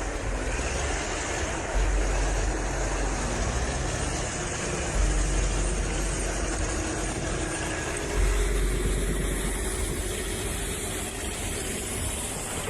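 A heavy timber-hauling vehicle's engine running, with a deep low surge about every three seconds.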